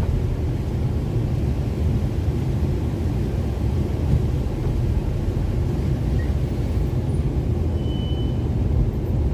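Steady low rumble of a vehicle on the move, heard from inside the cabin: engine and tyre noise on a wet road.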